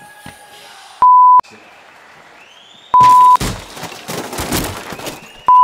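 Three steady 1 kHz censor bleeps, each well under a second long, covering swearing in the fight audio. Between the second and third bleeps comes a burst of crowd noise.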